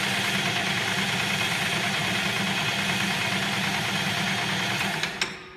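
Steady droning of an indoor shooting range's ventilation fans, with a low hum under an even rush of air. A faint click or two comes near the end, and then the drone drops away abruptly.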